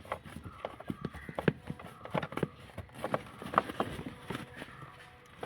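Irregular clicks and light knocks of a hand tool driving and tightening a screw into the plastic blower motor housing, several each second, with a sharper click at the very end.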